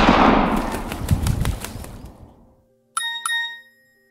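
The echoing tail of a pistol shot dies away over about two and a half seconds, with birds' wings flapping through it. After a short silence, a phone's text-message alert plays two quick chime notes about three seconds in.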